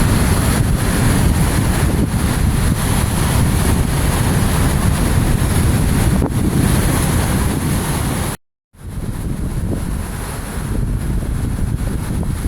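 Sea waves breaking and washing ashore under strong winter wind that buffets the microphone with a heavy low rumble. A brief silent break comes about eight and a half seconds in, after which the wind rumble is lighter.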